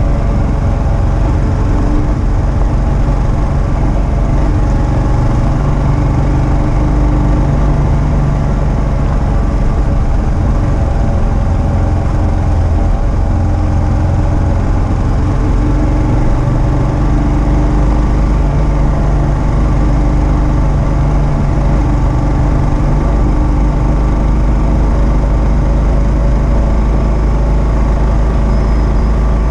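2022 Kawasaki KLR650's single-cylinder engine running at a steady cruise, with road and wind noise from riding a gravel road.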